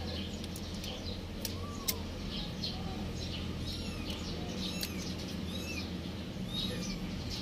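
Birds chirping in short, repeated arcing calls over a steady low hum, with a sharp click about two seconds in.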